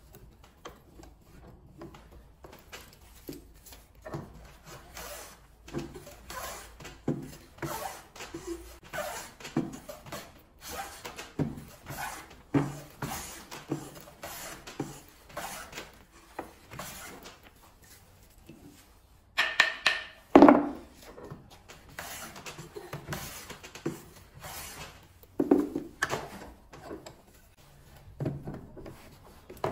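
Chinese-style wooden hand plane pushed along the edge of a hardwood board, each pass a short scraping hiss as it takes a shaving, about one stroke a second. Two louder, sharper strokes come about two-thirds of the way through.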